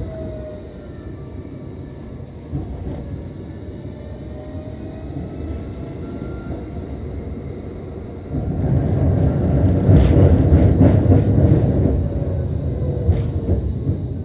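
Tram running, heard from inside the passenger compartment: a steady low rumble of wheels on rail, with a motor whine gliding down in pitch at the start and a constant high whine beneath. About eight seconds in, the rumble grows louder and a few sharp clacks come from the running gear.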